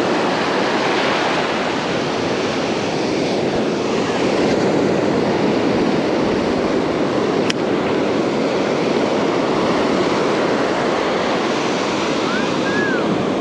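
Ocean surf breaking and washing up the beach in a steady rush, with a single sharp click about halfway through and a brief rising-and-falling chirp near the end.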